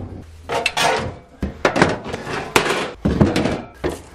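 Clatter of wooden boards and metal parts being handled and set down: several sharp knocks with scraping in between.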